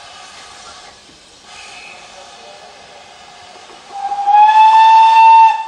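A steam locomotive hauls its train of carriages away, with a steady rolling and hissing noise. About four seconds in it gives one long whistle blast that rises slightly in pitch as it opens and cuts off sharply.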